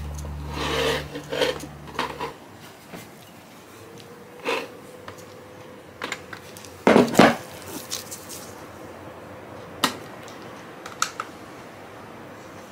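A glass mixing bowl handled on a countertop and set down on a digital kitchen scale: scattered knocks and clinks, the loudest a quick double knock about seven seconds in, with a few light clicks later. Background music fades out in the first two seconds.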